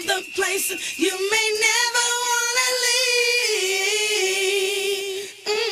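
A singer holding long, slightly wavering notes, with almost no beat or bass behind the voice; the voice drops out briefly near the end and comes back.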